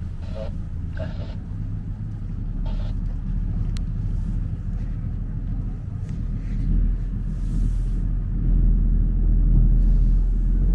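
Steady low rumble of a canal tour boat under way: its motor running, with wind buffeting the microphone, growing stronger near the end.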